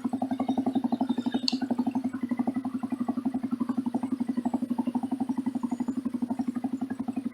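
Motorcycle engine idling with an even exhaust beat of about ten pulses a second. There is one short click about a second and a half in.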